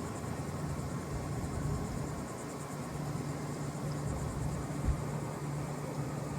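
Carrier heat pump outdoor unit running steadily, compressor hum under the rush of the condenser fan. A single low thump comes about five seconds in, and crickets chirp faintly in a fast, even pulse.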